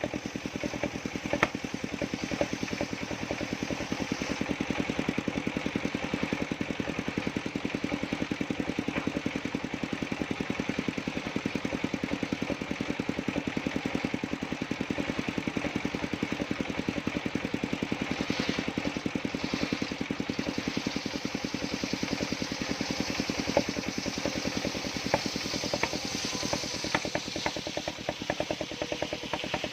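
Engine of a circular-saw sawmill running steadily with a fast, even firing beat, with a few brief higher-pitched passages in the second half.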